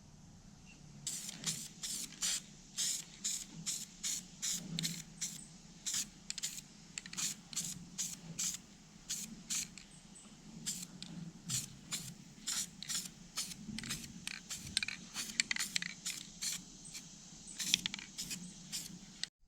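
Aerosol spray can hissing in many short, irregular bursts, about two a second, stopping abruptly near the end: insulating coating being sprayed onto a starter's wires to keep them from grounding against the case.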